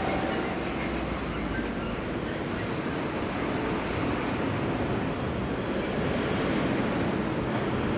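A heavy vehicle running with a steady rumble.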